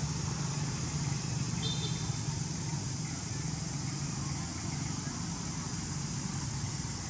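Steady outdoor background noise: a continuous low rumble with an even hiss over it, and one brief high chirp about one and a half seconds in.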